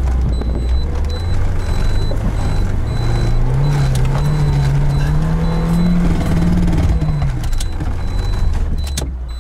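Lada Niva 2131's 1.7-litre four-cylinder petrol engine pulling under load in second low-range gear up a steep sandy climb, driving through the front wheels only, heard from inside the cabin. The revs rise from about three seconds in and drop away near seven seconds, with a high beep repeating evenly throughout and a few sharp knocks near the end.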